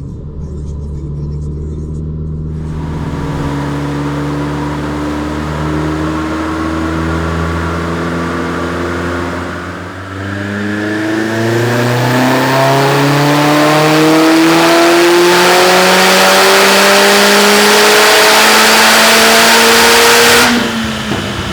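Chevrolet Sonic RS's turbocharged 1.4-litre four-cylinder, with a Z04 upgraded turbo and forged pistons and rods, doing a full-throttle pull on a chassis dyno. Engine pitch climbs slowly, dips briefly about halfway, then rises steadily and louder for about ten seconds, cutting off sharply near the end as the throttle closes.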